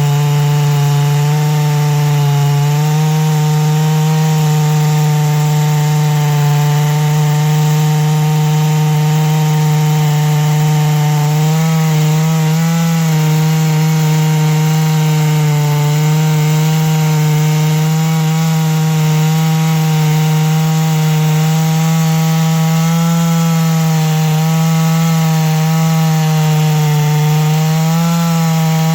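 Chainsaw mill ripping a slab lengthwise through a large black oak log, the saw engine held at a steady full throttle under load with small dips in pitch about twelve seconds in and near the end. The freshly touched-up chain is self-feeding through the oak.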